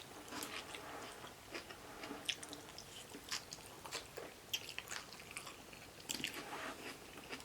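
A person chewing food close to the microphone, with soft wet mouth sounds and scattered small clicks and crackles.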